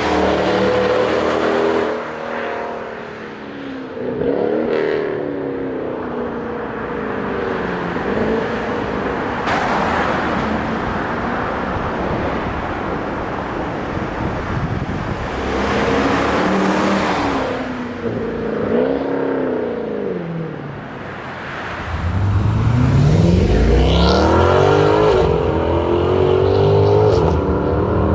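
Renntech-tuned Mercedes-Benz C63 AMG (W204) with its 6.2-litre V8 being revved and driven, its pitch rising and falling several times. The loudest is a hard acceleration about 22 seconds in, the pitch climbing steadily and staying high to the end.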